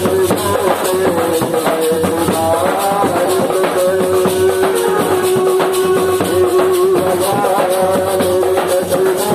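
Music with a fast, steady shaker rhythm under a sustained melody line.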